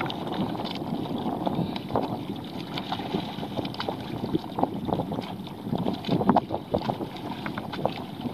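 Wind buffeting an outdoor camera microphone, with scattered small clicks and knocks over it.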